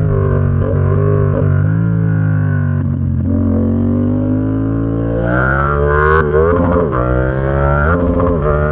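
Yamaha XSR700's 689 cc parallel-twin engine through an SC Project exhaust under way: it holds a steady pitch, eases down a little, then from about five seconds in revs up hard with two quick drops in pitch, typical of quickshifter upshifts.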